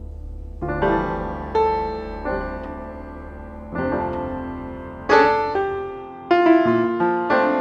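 Background piano music: slow single notes and chords, each struck and left to ring and fade, over a low sustained drone that drops away near the end.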